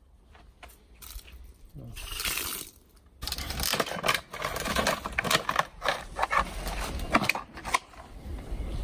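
Clear plastic blister packaging being handled and pulled open to take out an irrigation timer: crinkling, scraping and sharp plastic clicks, sparse at first and coming thick and fast from about three seconds in.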